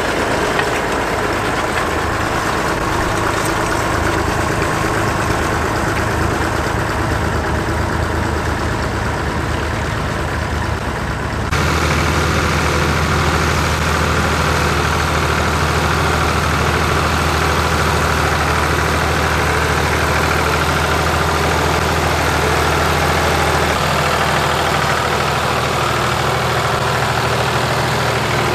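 Tractor engines running steadily while pulling cultivators through the soil. For about the first eleven seconds it is a Massey Ferguson 35; then the sound cuts suddenly to a blue Ford tractor's engine, which is steadier and deeper.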